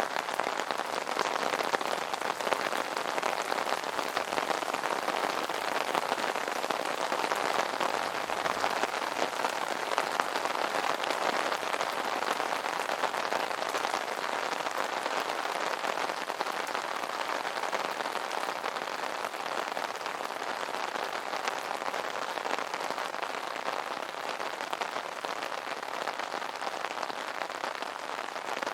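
Steady rain drumming on an umbrella canopy: a dense, even patter of many small drop impacts.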